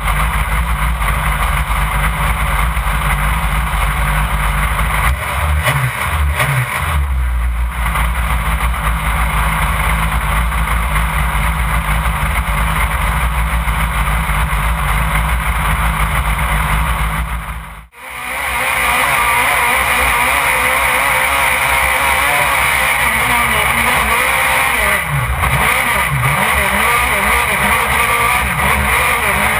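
Off-road race truck engine running hard under load, heard from inside the open cockpit together with wind and chassis rattle. The engine pitch rises and falls briefly a few times. The sound cuts out for a moment near the middle and then comes back with more hiss.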